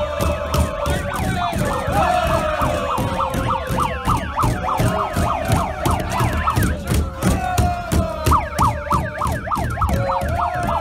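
A crowd of football players celebrating on a team bus, shouting and chanting over rhythmic thumping about two or three times a second. A wailing, siren-like sound rises and falls over and over through it, quickening near the end.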